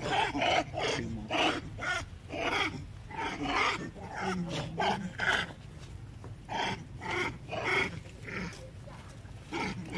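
Long-tailed macaques calling during a scuffle: a run of short calls, about two a second, with a short pause about halfway.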